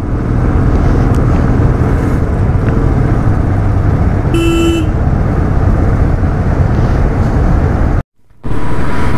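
Royal Enfield motorcycle riding at speed, heard from on the bike: the engine runs steadily under a constant rush of wind and road noise. A horn sounds once, briefly, about four and a half seconds in, and the sound cuts out for a moment near the end before the ride noise resumes.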